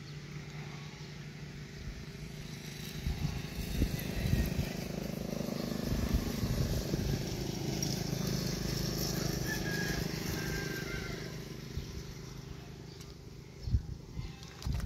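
An engine passing by, its rumble building over a few seconds and then fading, over a steady low hum, with a few light knocks.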